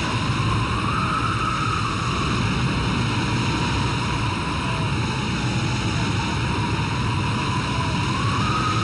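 Storm at sea: a steady, heavy rumble of wind and surging waves, with a faint thin tone above it that rises and falls slowly, about a second in and again near the end.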